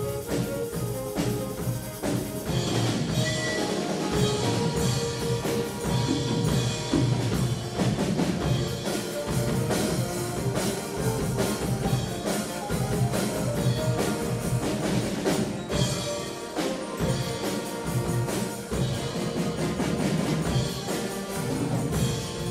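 A school wind band playing live, with saxophones and other wind instruments carrying the tune over a drum kit keeping the beat.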